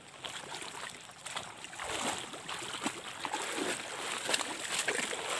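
Footsteps crunching on river gravel, a run of irregular short clicks that grows louder about two seconds in, over a steady hiss of flowing river water.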